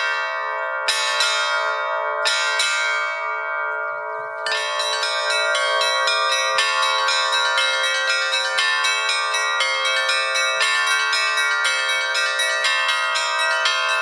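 Bells struck one after another, each tone ringing on and overlapping the next. A few separate strikes come first, then a dense, steady run of strikes from about four and a half seconds in.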